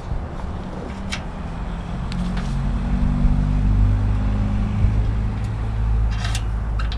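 A motor vehicle engine running, a low rumble that grows louder through the middle and stays up, with a few sharp clicks over it.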